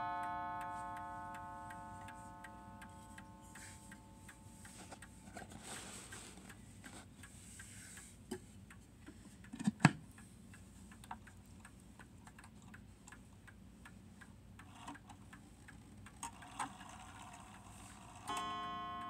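Seth Thomas mantel clock movement ticking steadily, while the ring of a stroke on its coiled cathedral gong dies away over the first few seconds. About halfway there is a sharp wooden knock as the clock's back door is handled, and near the end the gong is struck again and rings on.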